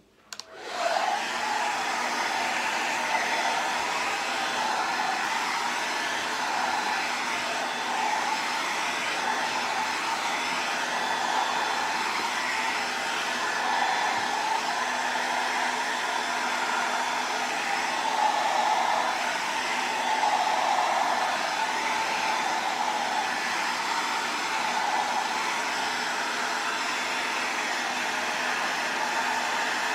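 Handheld hair dryer switching on about half a second in, then running steadily with slight swells in level as it is moved along the hair during brushing.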